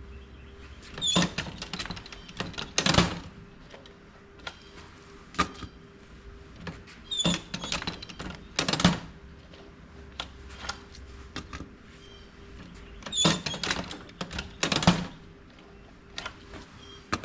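MEC Grabber shotgun-shell reloading press worked by hand: metal clunks and clicks as the handle is pulled down and let back up, the heaviest clunks coming in three pairs a few seconds apart, as the last shells of the batch are sized, primed and crimped.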